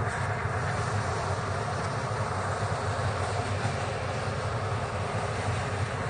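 Tornado winds rushing past a phone microphone: a loud, steady, dense noise with wind buffeting on the mic.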